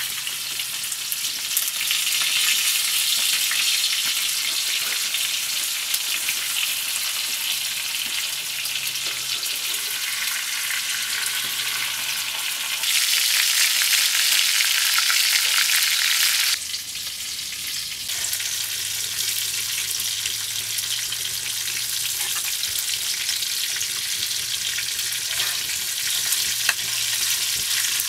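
Whole fish shallow-frying in hot oil in a pan, a steady sizzling hiss. It grows louder for a few seconds about halfway through, then drops suddenly, with a few light clicks near the end.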